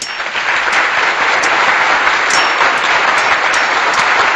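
A machete blade striking a coconut husk, with about eight sharp knocks at uneven intervals, some ringing with a short metallic ping. All of it sits over a loud, steady hiss.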